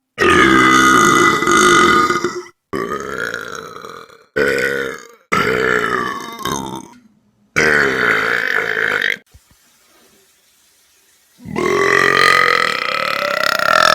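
Loud human burps: a string of about six drawn-out belches, with a short quiet gap before the last and longest one near the end.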